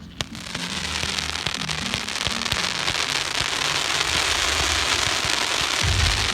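Fireworks display: a sharp bang just after the start, then dense crackling that builds steadily, with deep booms setting in near the end.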